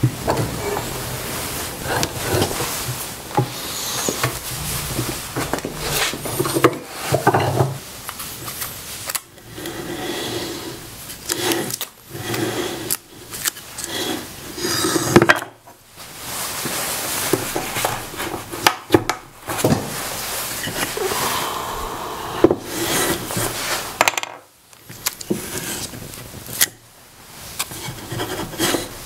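Wooden pieces handled on a wooden workbench: irregular knocks and clunks of wood on wood, with rubbing and scraping in between.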